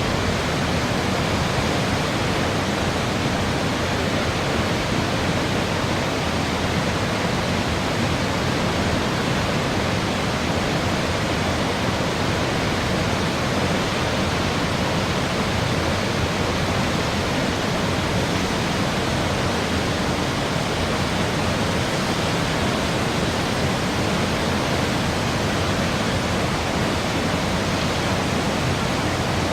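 Cumberland Falls, a large river waterfall, pouring and crashing: a steady, loud, unbroken rush of water.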